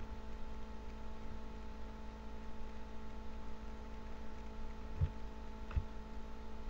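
Steady electrical hum with a faint noise floor, with two faint soft knocks about five seconds in.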